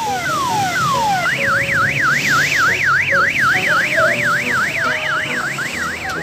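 Electronic siren on an odong-odong mini tourist train: a few quick falling sweeps, then about a second in it switches to a fast up-and-down yelp of about four cycles a second.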